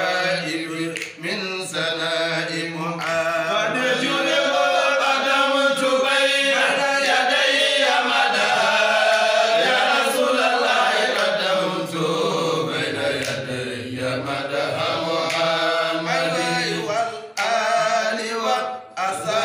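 Men's voices chanting an Islamic devotional song without words spoken between, led by a voice with long, wavering held notes.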